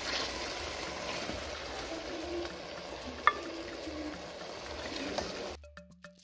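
Thick tomato-and-shrimp stew sizzling in a steel pot while a spoon stirs and scoops it out, with a single clink about three seconds in. Near the end the sizzle cuts off abruptly and light percussive music starts.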